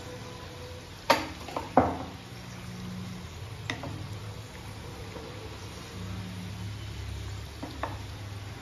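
Dal vadas (lentil fritters) deep-frying in hot oil in a kadhai, a steady sizzle, while a wooden spatula turns them: two sharp knocks against the pan about a second in, and lighter taps later.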